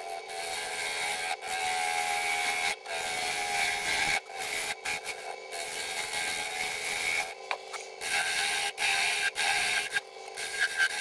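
Wood lathe running with a steady hum while a turning tool cuts the spinning hybrid cherry burl and epoxy blank, giving a scraping hiss. The cut stops and starts several times as the tool is lifted off the work.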